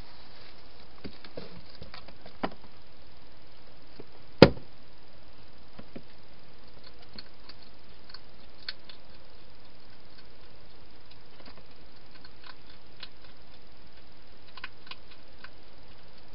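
A hedgehog feeding inside a clear plastic feeding box: scattered small clicks and crunches as it eats from the bowls, with one sharp knock about four seconds in, over a steady hiss.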